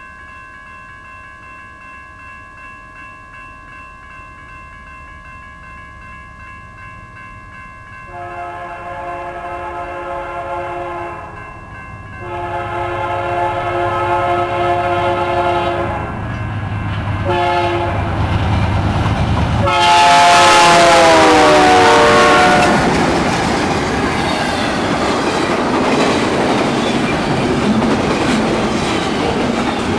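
The crossing bell rings steadily while a GE Dash 9-44CW diesel locomotive (BNSF 5279) approaches, sounding its horn in the grade-crossing pattern: long, long, short, long. The last long blast drops in pitch as the locomotive passes, about twenty seconds in. Then the rumble and wheel clatter of double-stack container cars rolling by at speed take over.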